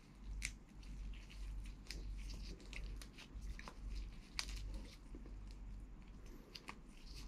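A boiled shrimp's shell being peeled apart by gloved hands: irregular small cracks and clicks, close up.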